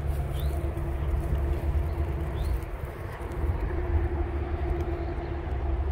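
Steady low rumble with a droning hum, typical of a vehicle engine running, and a couple of short, high rising chirps.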